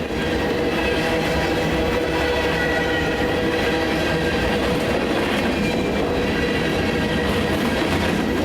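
Freight train rolling past at close range: a steady rumble of steel wheels on the rails, with a few faint, thin steady tones ringing over it.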